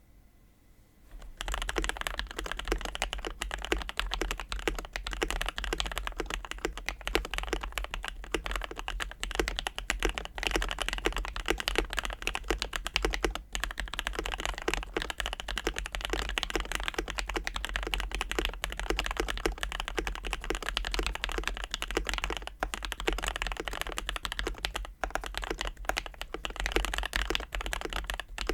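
Continuous fast typing on a KBD67 Lite R3 mechanical keyboard with Oil King linear switches lubed with Krytox 205g0 and a polycarbonate plate in an ABS plastic case, its stock case foam plus an added layer of PE foam; a deep-sounding stream of keystrokes that starts about a second in, over a steady low hum.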